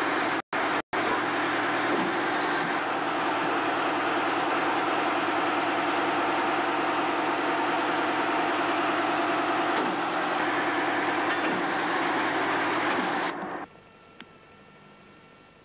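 Heavy engine of the rail-mounted mobile flash butt welding machine running steadily with a loud rushing noise. It briefly drops out twice just after the start and cuts off suddenly near the end.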